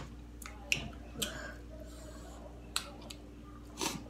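Scattered small clicks and smacks of people eating corn on the cob coated in crushed spicy chips, about half a dozen spread unevenly, over a low steady hum.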